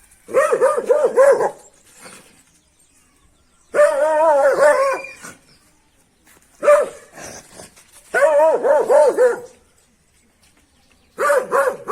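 A dog barking in five short runs of quick, high barks, three to five barks in each run. The run about four seconds in is longer and wavers in pitch, like a drawn-out whining bark.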